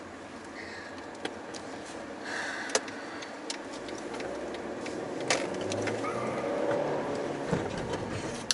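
Steady car cabin noise while driving, with a few sharp isolated clicks and ticks, about one every second or two.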